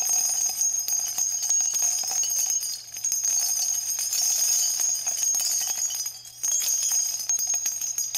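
Short intro music built on shimmering, jingling bells, starting abruptly, with brief dips in level about three seconds in and again about six seconds in.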